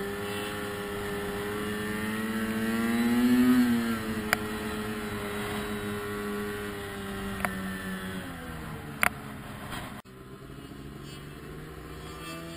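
Snowmobile engine running under way. The revs climb to a peak about three and a half seconds in, ease back, then drop off with the throttle near the end. A few sharp knocks are heard along the way.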